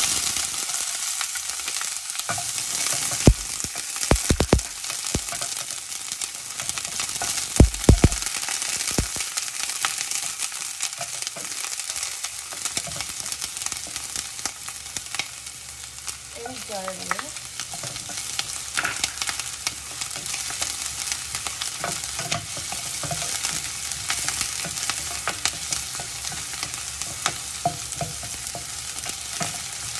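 Diced onion sizzling in hot olive oil in a stainless steel pan, stirred with a spoon that scrapes and clicks against the pan. A few sharp, louder knocks of the spoon on the pan come in the first eight seconds.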